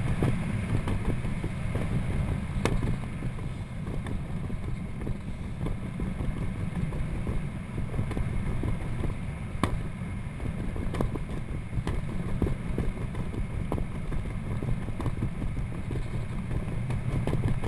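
Wind buffeting the camera microphone during a parachute descent under an open canopy: a steady low rumble, with a couple of sharp clicks.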